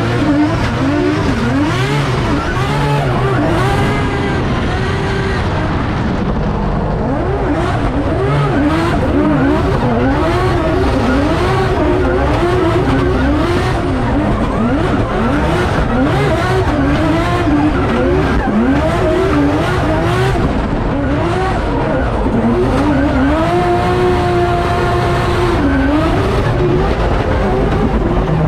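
Drift car engine revving hard, its pitch swooping up and down every second or two as the throttle is worked, and held level for a couple of seconds near the end, with tyres squealing.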